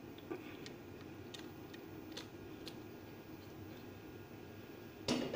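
Faint scattered ticks and light knocks from a steel utensil as curdled milk (paneer curds) is scraped out of it onto a straining cloth, with a short louder knock near the end, over a low steady hum.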